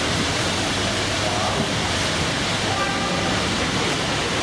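A steady rushing noise with faint, indistinct voices now and then.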